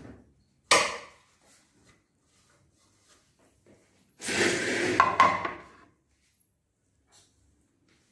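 Dishes handled on a stone countertop: a sharp knock about a second in, then a few seconds later a plastic plate set down and slid across the counter with a clatter lasting about a second and a half.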